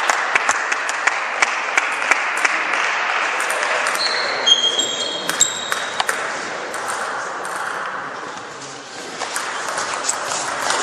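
Table tennis ball clicking back and forth between paddles and table in a rally, a quick run of sharp ticks, over a background haze of hall noise that fades over the first few seconds. A few short high squeaks come about four to six seconds in.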